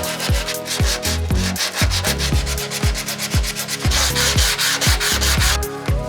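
Electronic background music with a thudding kick drum about twice a second and held bass notes, over a rasping, rubbing noise. A louder hiss comes in about four seconds in and stops suddenly near the end.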